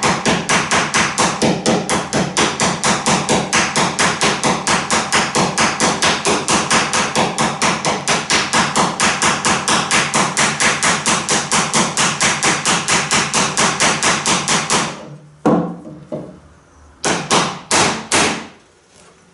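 Ball-peen hammer tapping rapidly and steadily, about four or five blows a second, peening the end of a copper boat rivet over its rove while an old sledgehammer head is held against the rivet head as a dolly. The tapping stops about fifteen seconds in, followed by a few separate knocks.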